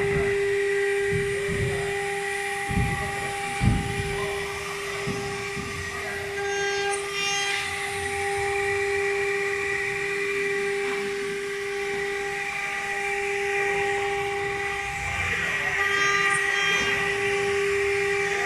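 LD-325 CNC wood router's spindle running with a steady whine while its bit cuts a groove in a wooden board, with a couple of dull knocks about three and four seconds in.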